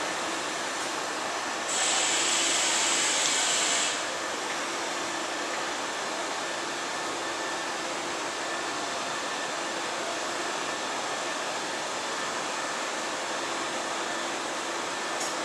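Steady rumble and hiss of a red DB electric multiple-unit train running away over the points of a station track fan. A louder, brighter hiss lasts for about two seconds near the start, with a faint steady hum underneath.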